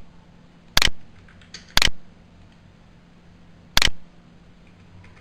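Three sharp clicks, the first two a second apart and the third two seconds later, over a faint steady hum.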